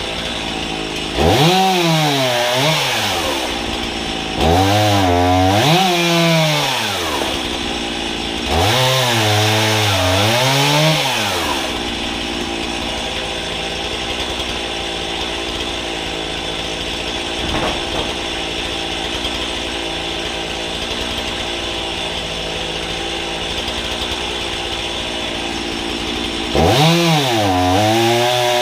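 Two-stroke chainsaw on a homemade guillotine frame, idling steadily, then throttled up three times in quick succession to cut firewood logs, its pitch sagging each time the chain bites into the wood. It idles again for a long stretch before a fourth cut starts near the end.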